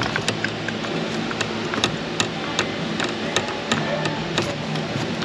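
Ratchet wrench clicking in short, irregular runs of sharp clicks, about three or four a second, as a spark plug is run down into the cylinder head of a supercharged 5.0 V8.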